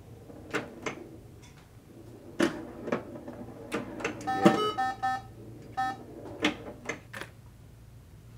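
Pinball machine being played: sharp clacks of the flippers and the ball striking the playfield, about ten in all. A run of short electronic scoring beeps at a few pitches comes about halfway through.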